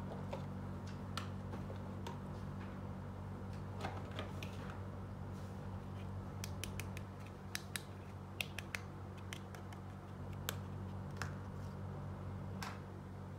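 Small plastic toy pieces being handled and set down, making short sharp clicks and taps, thickest about halfway through. A steady low hum runs underneath.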